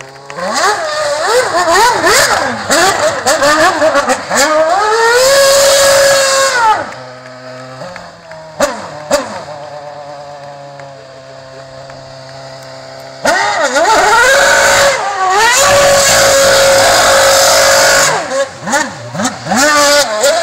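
Formula One car engine revving hard, its high pitch swooping up and down with rapid throttle blips. Two long loud spells of revving, with a quieter idle and a couple of short blips between them.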